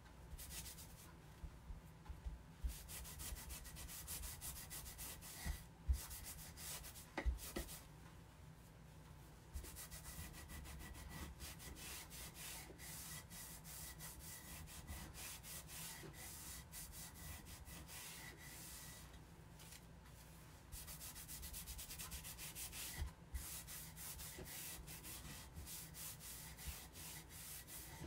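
Cloth rubbing wax into a bare wooden Christmas-tree cutout in quick back-and-forth strokes, a soft dry scratching, with short pauses and a few light knocks. This is the waxing stage that seals the raw wood so a transfer won't stick to it.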